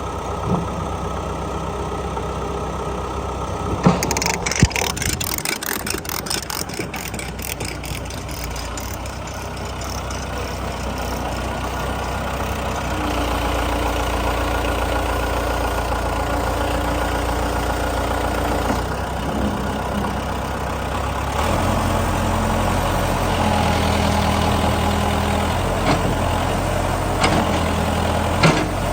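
Heavy vehicle engine idling steadily, its speed stepping up twice, once around the middle and again later on. A burst of rapid clicking and rattling comes a few seconds in.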